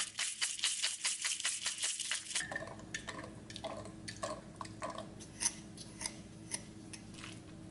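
Hand-twisted pepper grinder grinding black peppercorns: a quick run of dry clicks, about seven a second, for roughly two and a half seconds. Then scattered light taps and clinks of kitchen containers over a faint steady hum.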